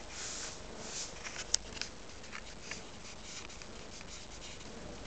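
Soft rubbing and scuffing noise with a scatter of sharp clicks, the loudest about a second and a half in: handling noise from a handheld camera being moved.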